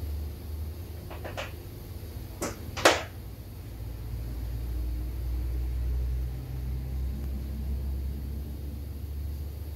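Steady low workshop rumble, with a few light clicks about a second in and two sharp knocks a half-second apart near three seconds as small metal engine parts are handled.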